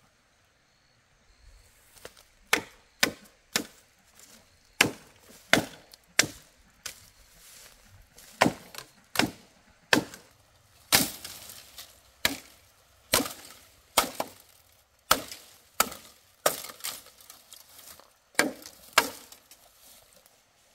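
A blade chopping into wood: about twenty sharp strikes, roughly one every second or less, in uneven runs.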